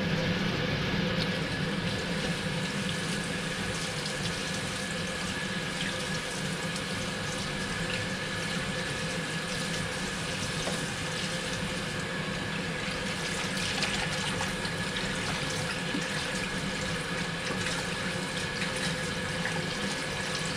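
Kitchen faucet running steadily into a stainless steel sink, the stream splashing over pickleweed stems being rinsed by hand in a colander.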